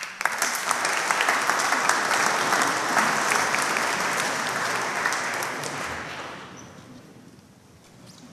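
Audience applauding, breaking out suddenly and dying away after about six seconds.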